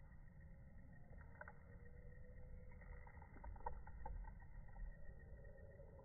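Near silence: a faint low background rumble, with a few faint ticks around the middle.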